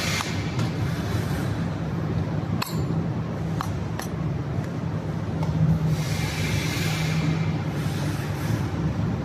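A few light metallic clinks, the sharpest about two and a half seconds in, over a steady low hum, with a stretch of hiss later on.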